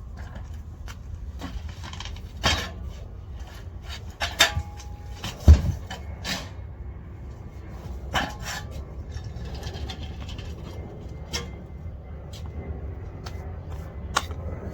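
Irregular knocks, clunks and scrapes of a large boxed lawn mower being shifted and set down, the loudest a deep thump about five and a half seconds in, over a steady low rumble.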